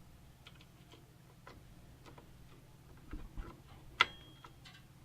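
Light clicks and taps of computer parts being handled and fitted during a PC build, with a dull thump a little after three seconds and one sharp click about four seconds in.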